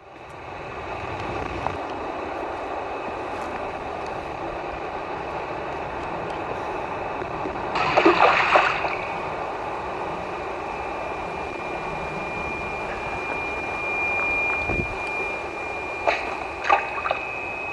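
Steady rushing noise of running water, with a brief louder burst about eight seconds in, a thin high tone over the later part, and a few sharp clicks near the end.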